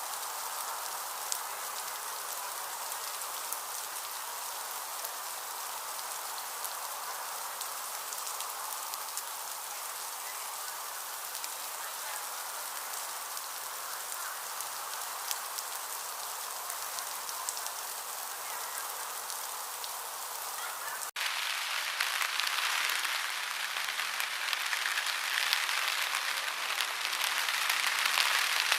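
Steady rain falling, with scattered drops ticking on a surface. About three-quarters of the way in it cuts abruptly to a louder, denser downpour of heavy rain.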